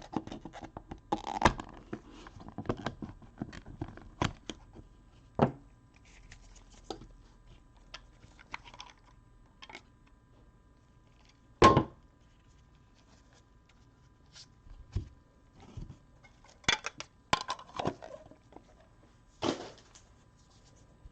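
Cardboard trading-card box being pried and torn open by hand with a screwdriver: scattered scrapes, rips, taps and thunks. A sharp knock about halfway through is the loudest, and a quick run of knocks comes near the end.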